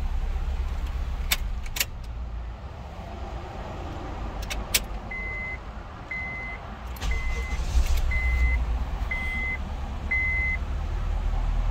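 Six short, high electronic beeps about a second apart, over a steady low rumble, with a few sharp clicks in the first five seconds.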